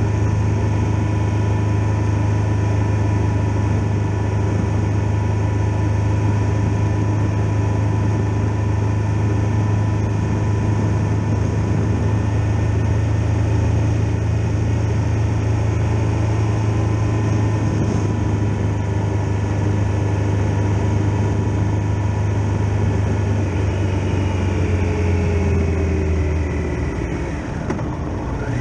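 Triumph Tiger Explorer XRx's three-cylinder engine running steadily at road speed with a low drone. About four-fifths of the way through, the revs fall away as the motorcycle slows.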